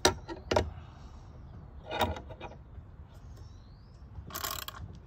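Metal hardware knocking and clinking as a bolt and tapered nut are handled on a steel gas-pipe axle, with three sharp knocks in the first two seconds. Near the end a ratchet wrench starts clicking rapidly as the bolt is turned down.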